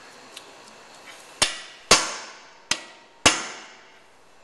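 Hand impact driver (hammer screwdriver) struck four times with a hammer, each blow a sharp metallic crack with a brief ring, driving a brake rotor's retaining screw into the hub.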